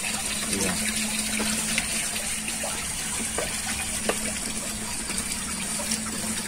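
Water pouring and splashing steadily into a koi pond from the filtration return, with a steady low hum beneath it.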